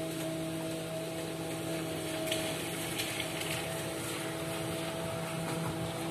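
Steady mechanical hum over a constant hiss, with a couple of faint ticks a little over two seconds in.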